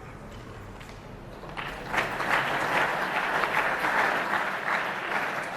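An assembly audience applauding. Clapping breaks out about a second and a half in and holds steady.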